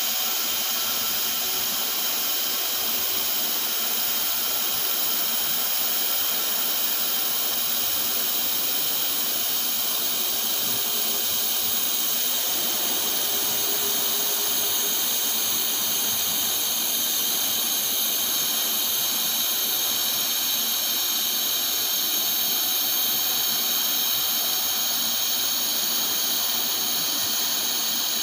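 TIG welding arc on carbon steel boiler pipe: a steady, even hiss, strongest in the high pitches, with faint high whines running through it.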